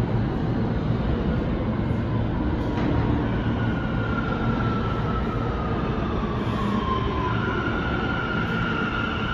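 New York City subway C train approaching along the station track, a steady heavy rumble. About four seconds in a high squeal comes in, slides lower, then holds steady near the end as the train closes in.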